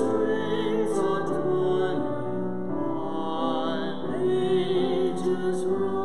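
A woman's and a man's voices singing a slow evening hymn together, on long held notes.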